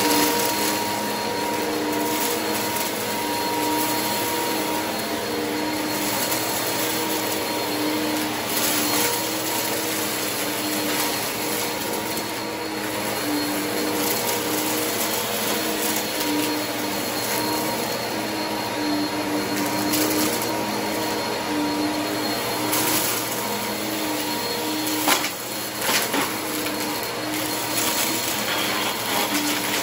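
Two upright vacuum cleaners running steadily on a carpet, sucking up scattered confetti and sequins, with a constant motor whine and occasional sharp rattles as pieces are pulled up.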